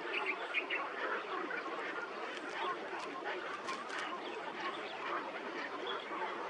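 A flock of birds calling together, many short overlapping calls making a dense, steady chatter, with the odd higher, sharper call.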